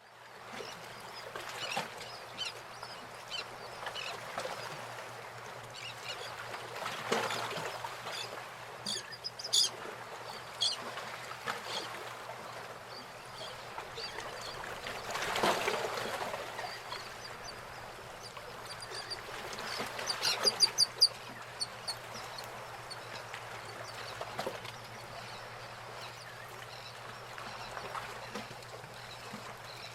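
Birds calling at intervals over a steady background hiss and a low steady hum, with a quick run of high chirps about twenty seconds in.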